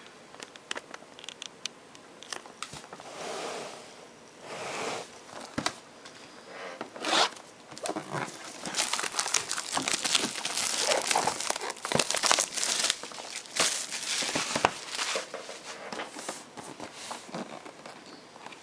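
Plastic shrink-wrap being torn and crumpled off a sealed trading-card box, an irregular crackling and crinkling that is busiest in the middle stretch.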